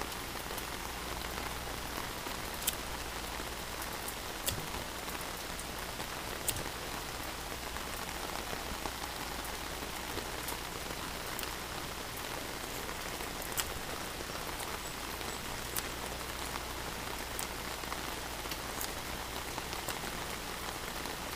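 Steady rain falling on an umbrella overhead, with scattered sharp ticks now and then.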